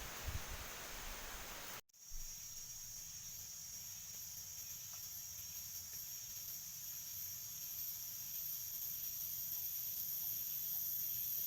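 A rushing noise of wind and rain with a few low thumps, cut off abruptly about two seconds in. It gives way to a steady, high-pitched chorus of night insects such as crickets.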